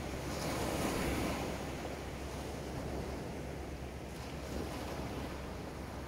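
Small waves breaking and washing up onto a sandy beach. The surf swells louder about a second in, then settles into a steady wash.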